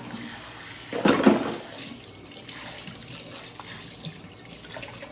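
Kitchen tap running steadily into a sink for washing dishes, with a louder splash about a second in.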